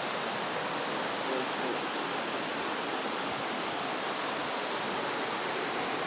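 Steady rush of water pouring over a dam's concrete spillway and tumbling through rocky rapids below, an even, unbroken roar.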